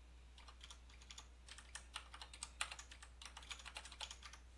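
Computer keyboard being typed on: quick, irregular runs of faint keystrokes as text is entered and edited in Emacs.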